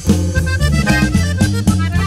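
Norteño band music: an accordion plays the melody over a strong bass line and steady drum hits.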